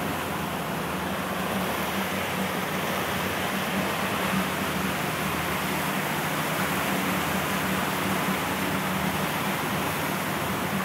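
2007 Striper 2601 fishing boat running under power: a steady engine drone with water rushing and spraying against the hull.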